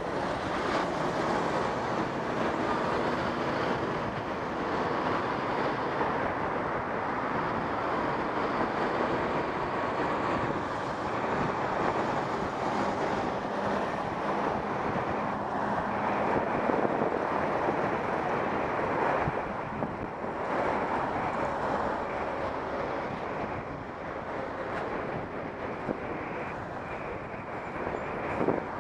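Steady riding noise from a moving bicycle: wind buffeting the camera's microphone and tyres rolling on wet pavement, with motor traffic passing alongside.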